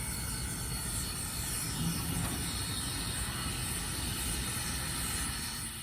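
Steam locomotive hissing steadily, over a low, uneven rumble.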